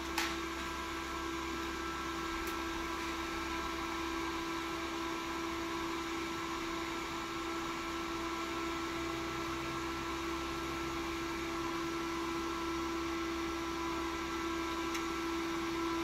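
A server cooling fan running steadily: an even rush of air with a steady hum held on one pitch.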